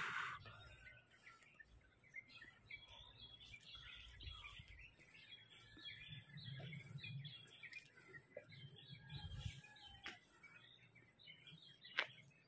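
Faint chirping and twittering of several small birds, with one sharp click near the end.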